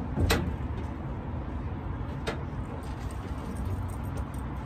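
Sharp knocks on a pontoon boat's deck, a loud one about a quarter second in and a lighter one about two seconds in, over a steady low rumble.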